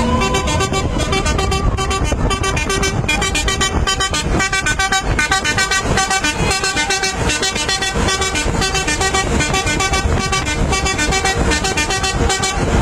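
Mercedes-Benz Axor 1840 truck's musical air horns playing a fast tune of short, quickly changing notes, over a low rumble.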